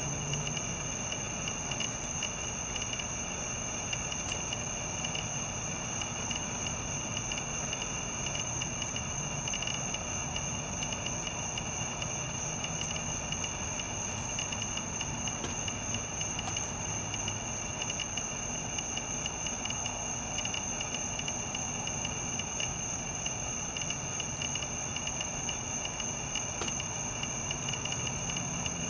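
A steady chorus of insects, crickets trilling at a constant high pitch without pause.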